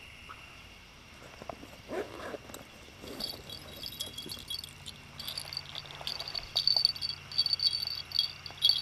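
Small catfishing bells on a rod tip jingling in irregular runs, starting about three seconds in and loudest near the end.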